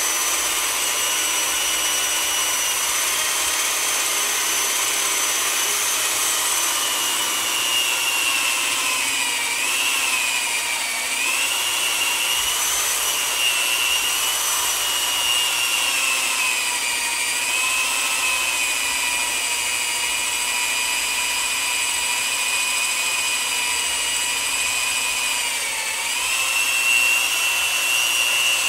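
Power drill spinning a hole saw in reverse against a rubber snowmobile paddle track, melting a hole through the rubber rather than cutting it. A steady motor whine whose pitch dips briefly about ten seconds in and again near the end.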